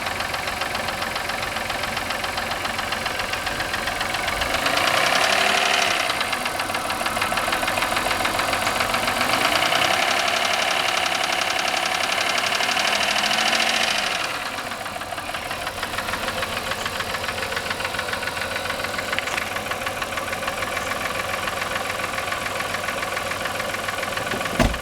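1996 Voyager minivan engine running with a steady, rhythmic knock, revved up briefly about five seconds in and again for several seconds from about ten seconds in. It is the engine's first start after sitting three years, on fresh oil and gas.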